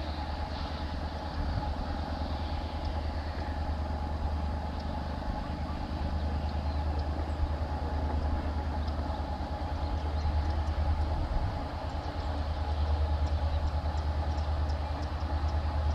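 EMD WDP-4 diesel locomotive's 16-cylinder two-stroke 710 engine working hard as it accelerates a passenger train: a steady low rumble with a held whine above it, growing louder as the locomotive draws near.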